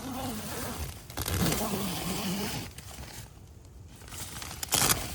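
Tent fabric rustling and crinkling as it is handled, with a short, loud scrape near the end.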